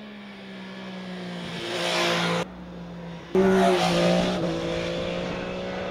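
MV Agusta Stradale 800's three-cylinder engine running under way at speed, its note growing louder over the first two seconds or so. The sound drops abruptly, then comes back loud about a second later and slowly eases off.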